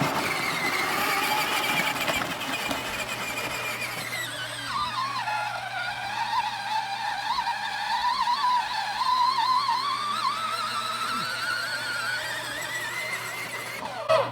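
Small electric motor whining. Its pitch drops about five seconds in, then climbs slowly, and the sound cuts off near the end, with a low steady hum underneath.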